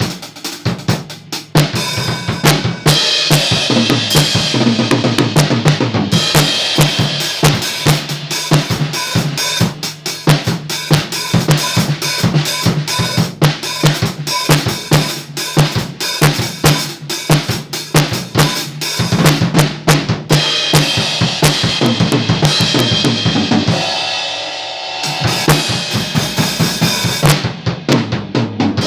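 An RMV Crossroad acoustic drum kit with Orion Solo cymbals being played continuously, with bass drum, snare and cymbals. About two-thirds of the way through, the drums drop out for about a second, leaving the cymbals ringing, then the playing picks back up.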